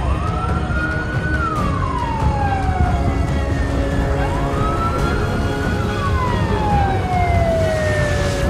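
Emergency vehicle siren in a slow wail, rising quickly and falling slowly in pitch about every four seconds, over a steady low rumble.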